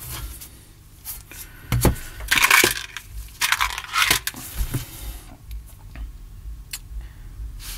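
Handling noises from an Alesis Midiverb effects unit being handled and opened: scattered clicks, knocks and scraping of the casing. The busiest scraping comes a couple of seconds in, thinning to light ticks in the second half.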